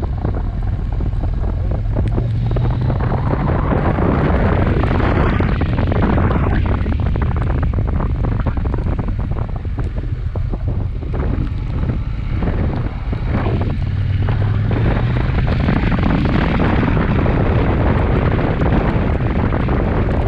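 Wind buffeting the microphone of a motorcycle ridden on a wet road in rain, with the engine's low drone under it rising twice as the bike speeds up.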